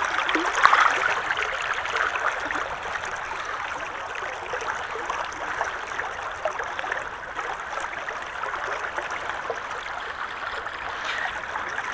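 Shallow stream running over rocks, a steady rushing and trickling of water, with a brief louder splash less than a second in.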